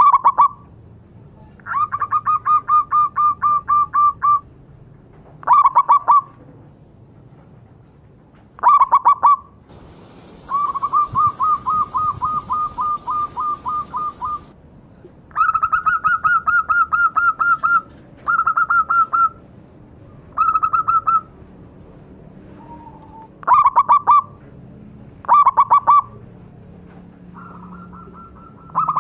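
Zebra dove (perkutut) singing loudly: repeated phrases of rapid staccato cooing notes, some short bursts and some longer runs of two to four seconds, with short pauses between them.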